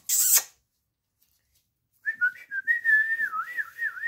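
A person whistling a single wavering tone that swoops up and down and ends with a falling slide, starting about halfway through, after a short noisy burst at the very start.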